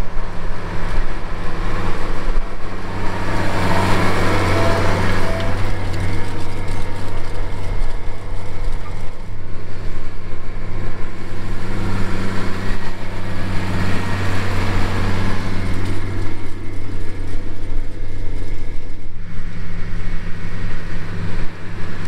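Case IH Magnum tractor's diesel engine running steadily under load while pulling a rotary hoe, a constant low drone.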